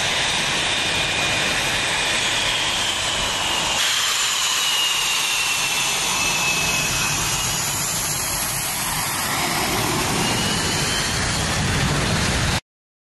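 Spanish Air Force EF-18 Hornet's twin General Electric F404 turbofans running as the fighter taxis: a steady jet rush with a high turbine whine that sags and then rises in pitch. The sound changes abruptly about four seconds in and cuts off suddenly just before the end.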